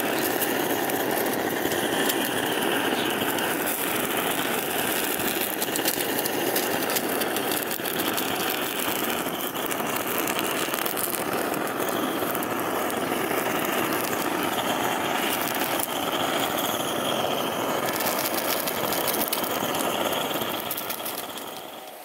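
Handheld butane blow torch burning with a steady, loud hiss as its flame sears slices of yellowtail sashimi on a wooden board. The flame dies away just before the end.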